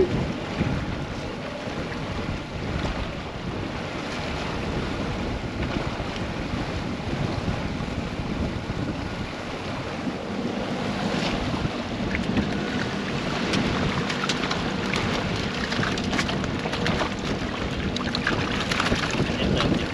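Wind buffeting the microphone and sea water moving around a small fishing boat: a steady rushing noise, with scattered light clicks and knocks from about eleven seconds in.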